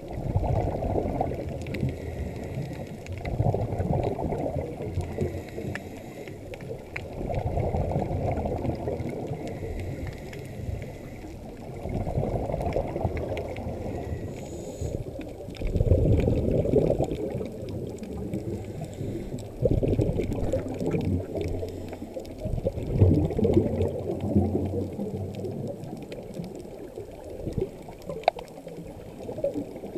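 A scuba diver breathing through a regulator underwater: exhaled bubbles gurgle out in bursts about every four seconds, with quieter gaps between them.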